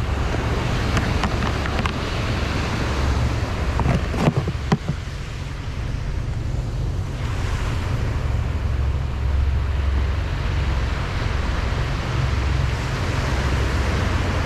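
Ocean surf breaking and washing on a sandy beach, with wind buffeting the microphone in a low rumble. A few short knocks come about four seconds in.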